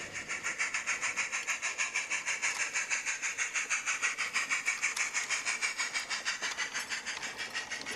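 Garden-scale model goods train running on 45mm-gauge track: an even rhythm of hissy pulses, about four a second, over a faint steady whine.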